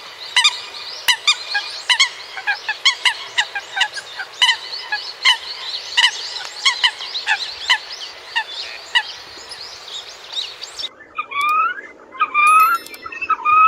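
A flock of coots calling: many short, sharp honking calls, two or three a second, overlapping over a steady background hiss. About eleven seconds in the recording changes abruptly to a few rising whistled notes.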